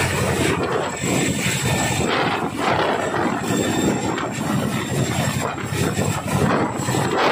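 Boeing CH-47 Chinook tandem-rotor helicopter hovering low, its two rotors beating rapidly over the turbine noise, loud and steady with swells every second or two.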